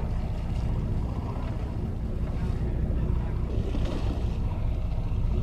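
Steady low rumble of a charter fishing boat's engine running, with wind buffeting the microphone and sea water washing along the hull.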